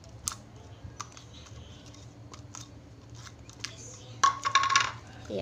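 Sticky homemade lotion slime being kneaded and stretched by hand, giving scattered small clicks and snaps, with a louder cluster of snaps and a brief high-pitched tone about four seconds in. The slime is still super sticky, not yet firmed with activator.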